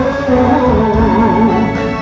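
A song with a singing voice over instrumental backing; a little after the middle a note is held with a wavering vibrato.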